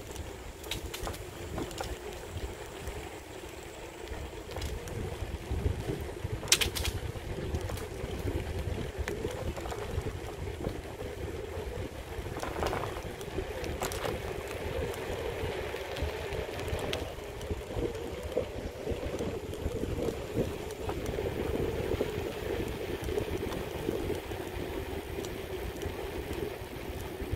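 Bicycle ride noise: wind buffeting the microphone over a steady rolling rumble from the bike on a paved path, with a few sharp clicks along the way.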